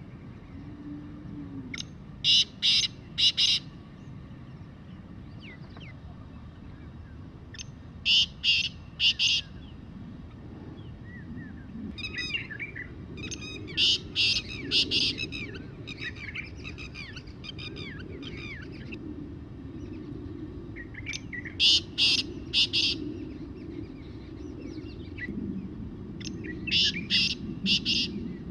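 Black francolin calling five times, each call a short phrase of three or four loud notes, the phrases a few seconds apart.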